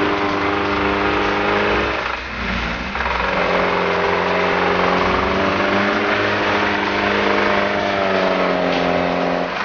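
UAZ 4x4's engine running under load as it pulls along a muddy, snowy track, with a steady note that dips briefly about two seconds in and then picks up again.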